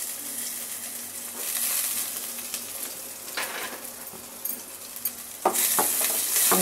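Chopped onion, garlic, curry leaves and cumin and fennel seeds sizzling in hot coconut oil in a metal pan while being tempered. About five and a half seconds in it grows louder, with scraping strokes, as stirring begins.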